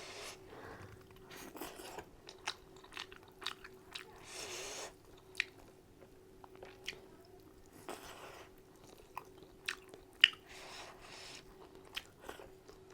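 A person chewing and biting food close to the microphone, with sharp wet mouth clicks and smacks at irregular intervals and a faint steady hum underneath.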